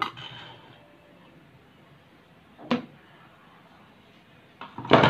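A few knocks from handling a bowl and metal spoon on a tabletop: a short click at the start, a single knock a little before three seconds in, and a louder clatter near the end as the hand takes hold of them again.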